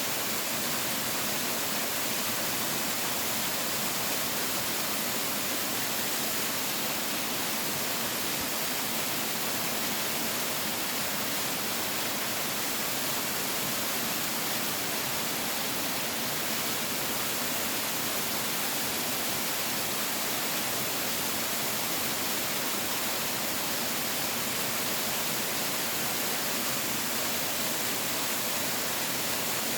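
Waterfall: water falling and splashing, a steady rushing hiss with little low rumble.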